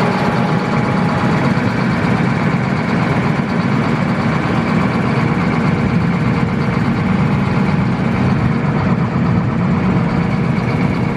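Diesel engine of a Challenger MTC775E tracked tractor idling steadily.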